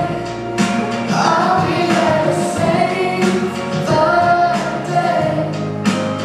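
Music with singing: a song with a sung melody over instrumental backing.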